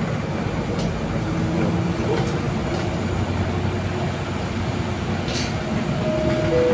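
Interior running noise of a Solaris Urbino 18 III articulated city bus: a steady rumble of the drivetrain with tyre noise on a wet road. Near the end a faint whine steps down in pitch.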